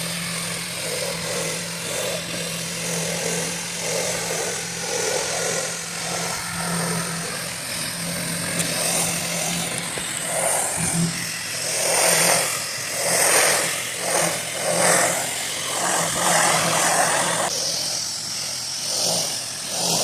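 A 4 GPM pressure washer runs steadily with a low hum while its water jet hisses against a shed's siding. In the second half the spray grows louder in sweeping surges.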